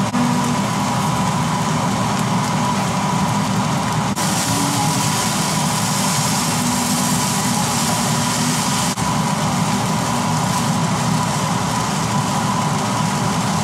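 Steady whir and hum of a kitchen range hood fan over fried rice sizzling in a wok on a gas burner, with the spatula turning the rice.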